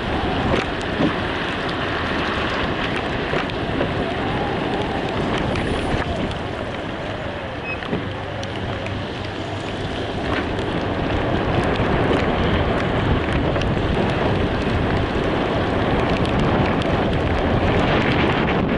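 Steady road and wind noise from a moving car, heard from inside the cabin, growing slightly louder about halfway through.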